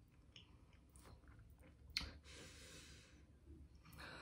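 Faint mouth breathing from a person suffering chili heat, with one sharp click about two seconds in followed by a long breath out, and a few softer clicks.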